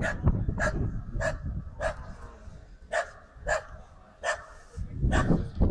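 A dog barking repeatedly in short, sharp barks, roughly one every half second to a second, with a brief gap about halfway through, over a low rumble.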